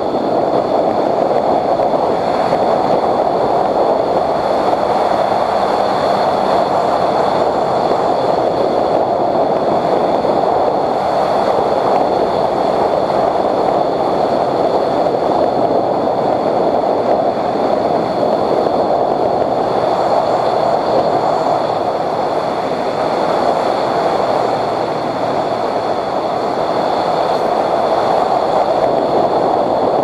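Motorcycle on the move: a steady rush of wind and engine noise, with a faint steady high whine.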